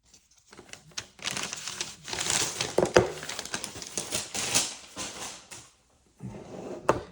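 Packaging being handled and unwrapped: uneven crinkling and rustling with a few sharp clicks, then a short burst of handling near the end.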